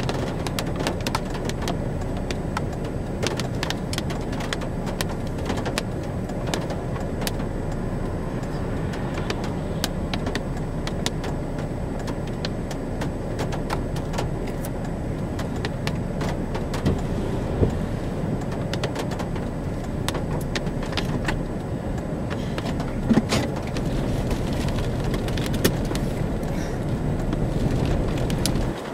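Steady wind rumble and storm noise with raindrops ticking on the car and microphone, and a few louder knocks in the second half.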